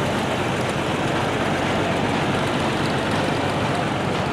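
Graham-Bradley tractor's engine running steadily as the tractor drives past close by.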